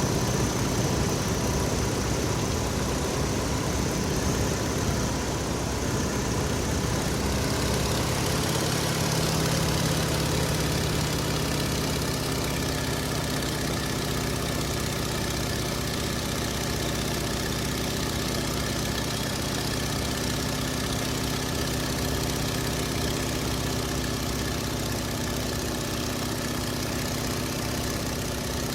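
A motor vehicle's engine idling steadily. About eight seconds in, its note settles into a steadier low hum.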